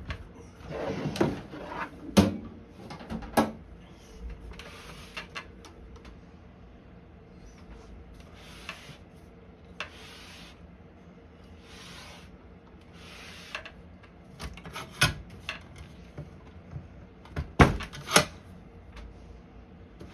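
A portable typewriter being taken out of its carrying case and handled: a few clunks and knocks, with short rubbing and sliding sounds in between.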